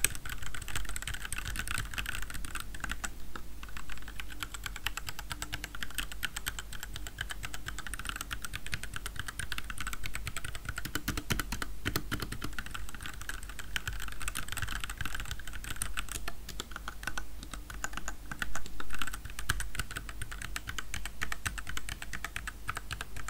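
Continuous fast typing on a Rexus Daxa M84 Pro 75% mechanical keyboard with Gateron Yellow linear switches: a dense, even patter of keystrokes, not very loud.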